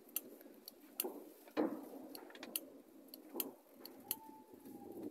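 Faint, scattered short clicks and soft knocks, with a brief faint steady tone about four seconds in.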